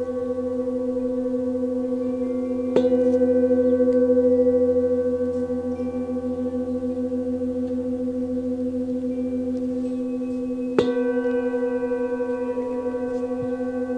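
Metal singing bowl held on the palm and struck twice, about three seconds in and again near eleven seconds. Each strike renews a long, wavering ring with a low hum and a higher overtone.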